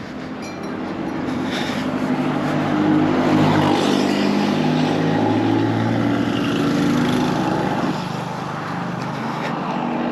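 A motor vehicle's engine running close by, growing louder over the first few seconds, holding steady, then easing off a little near the end.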